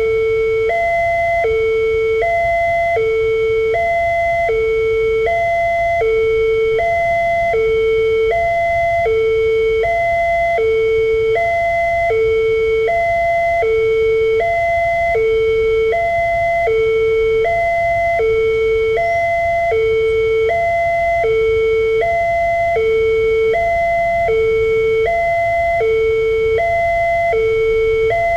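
Railway level-crossing warning alarm sounding from a horn loudspeaker: an electronic two-note ding-dong, low note then high note, repeating evenly about once a second. It signals that a train is approaching and the barrier is down. A steady low rumble runs underneath.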